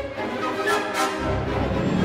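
Background music with sustained chords and two short percussive hits near the middle.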